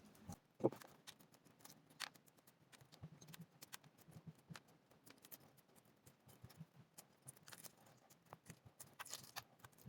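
Faint, irregular small clicks and crackles of eggshell breaking away as a hard-boiled egg is peeled by hand.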